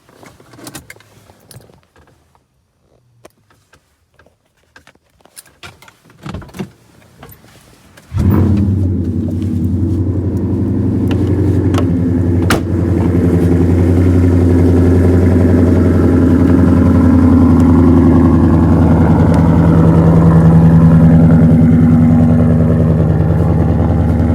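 Faint clicks and handling noises, then about eight seconds in a car engine comes on suddenly and loudly and runs steadily, its pitch shifting a little now and then.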